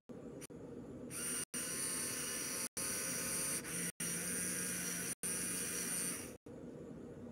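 LEGO Technic Powered Up electric motors whining steadily as they drive the Liebherr R 9800 excavator's boom, stick and bucket, starting about a second in and stopping near the end. A second, lower motor tone joins about halfway through, and the sound is broken by several very short silent gaps.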